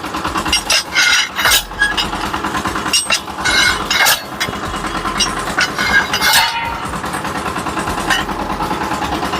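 Irregular metallic clinks and knocks of hand tools striking a road roller's tubeless tyre and steel rim as the tyre is worked open by hand, about half a dozen sharp blows with a short ring after each.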